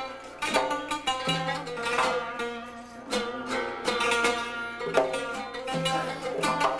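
Long-necked fretted lute played with a quick melody of plucked notes, a lower note sounding in stretches beneath it.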